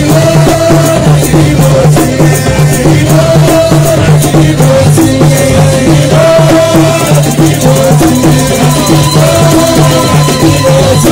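Live Touati folk music: a short melodic phrase repeating about every three seconds over a steady low pulse, with rattling, clicking percussion throughout.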